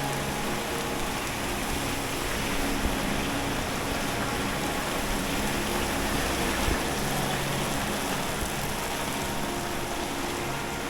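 Wet-street ambience: a steady wash of rain-like noise with the low hum of engines running, which fades in and out.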